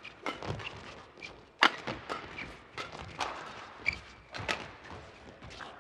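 Badminton rackets striking the shuttlecock in a fast doubles rally: a quick, irregular run of sharp hits, the loudest about a second and a half in.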